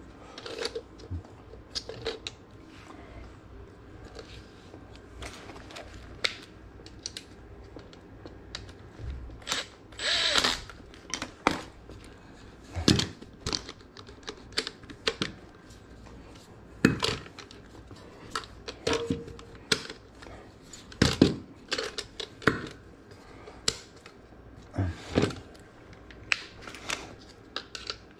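Irregular metal clicks and knocks as an ECM blower motor and its steel mounting bracket are handled and fitted by hand, with tools knocking against the floor.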